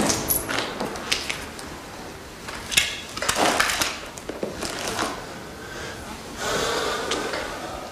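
A person moving about a room: footsteps with rustling and small knocks and clicks, and a short scrape near the end.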